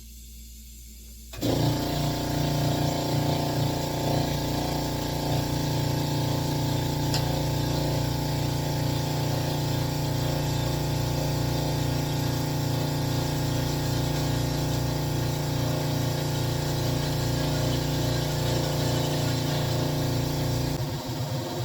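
A power tool's motor starts abruptly about a second in and runs steadily with a fast, even pulse, then stops near the end.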